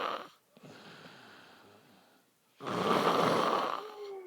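A drunk, sleeping man snoring loudly in a slow rhythm. A loud snore ends just as the sound begins, a much quieter breath follows, and about two and a half seconds in comes another loud snore lasting about a second.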